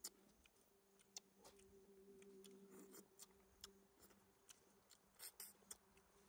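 Near silence: faint scattered clicks and ticks over a low steady hum.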